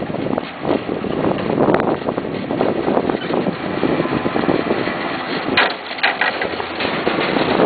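Wind buffeting the microphone during a chairlift ride, with a few short clattering knocks a little past the middle.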